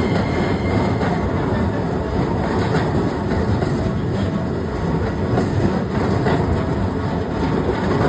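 Keikyu Line train running past: a steady rail rumble with occasional wheel clacks.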